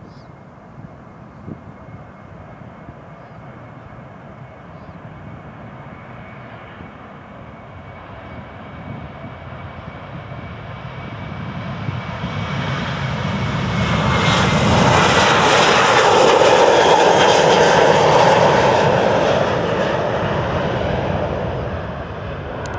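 Boeing 737-800 jetliner taking off, its two CFM56 turbofan engines at take-off power. A jet roar swells over about ten seconds, is loudest as it passes, then fades, with a thin fan whine that slides down in pitch.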